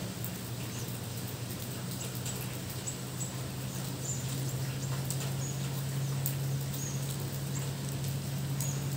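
Steady rain falling, with scattered close drops ticking and a few short high chirps. Underneath runs a low steady hum that grows somewhat louder about halfway through.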